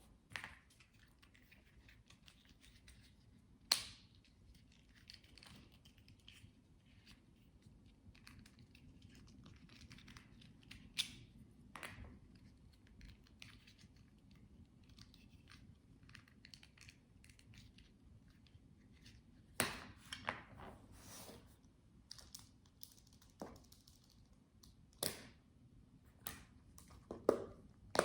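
Fidget toys handled close to the microphone for ASMR: faint rustling, scratching and crinkling, with scattered sharp clicks and taps that come more often near the end.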